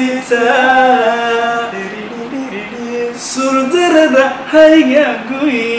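A man singing without accompaniment, in long held notes that step from pitch to pitch.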